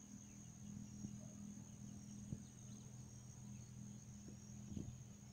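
Faint ambience of insects singing: a steady high-pitched buzz over a low steady hum, with a few faint ticks.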